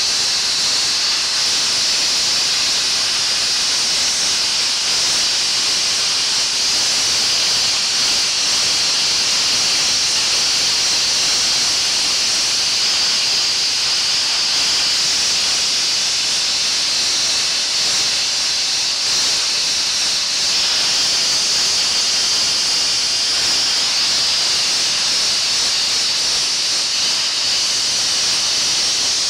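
Hand-held sandblasting gun blasting grit against a metal car window frame: a loud, steady hiss of compressed air and abrasive without a break.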